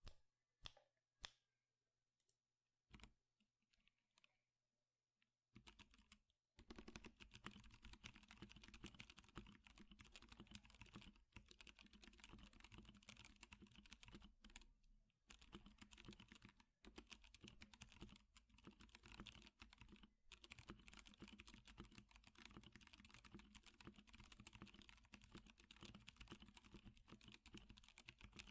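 Typing on a Melody96 mechanical keyboard with lubed 78g Zealios tactile switches and PBT keycaps. A few separate keystrokes come first, then about six seconds in it becomes fast, continuous typing with only brief pauses.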